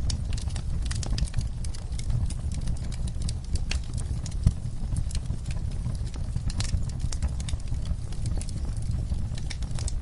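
Wood fire in a fireplace crackling: a steady low rumble of flames with irregular sharp pops and snaps, one louder pop about halfway through.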